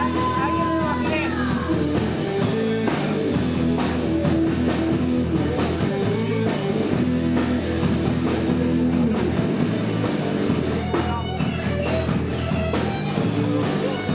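Blues-rock band playing, a guitar to the fore over bass and drums, with a bending lead line near the start.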